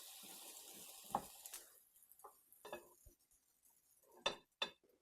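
Kitchen handling sounds: a steady hiss for the first couple of seconds, then a string of light clinks and knocks of kitchenware being handled, the loudest about four seconds in.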